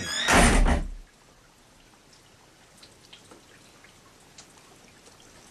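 A door slams shut with a single heavy bang just after the start. It is followed by a faint hiss with a few scattered soft ticks.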